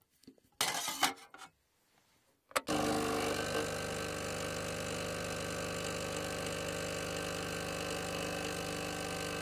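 Single-serve capsule coffee machine: a clatter as the capsule goes in and the lid is pushed shut, a click, then the machine starts and runs with a steady hum while coffee pours into the mug.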